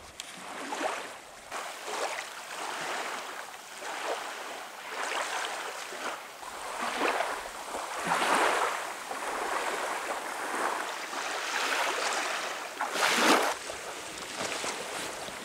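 Small waves washing onto a lakeshore in irregular surges about every second or two, with one louder surge near the end.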